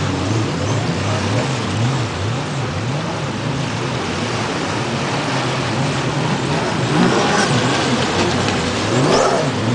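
Racing jet ski engine revving up and down over and over, its pitch rising and falling about once a second.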